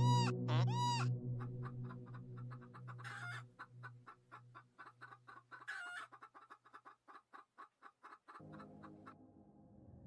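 Two short rising-then-falling calls over a low hum open the sound. Then come quail clucking: a run of quick soft clucks that slow and fade, with two sharper calls about three and six seconds in.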